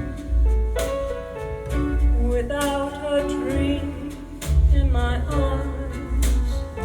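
Recorded music played back through hi-fi speakers: plucked guitar over deep bass, with a wavering melody line.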